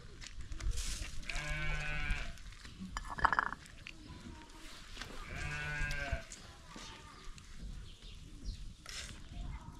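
A goat bleating twice, each call about a second long and some four seconds apart. A short, sharp sound is heard about three seconds in.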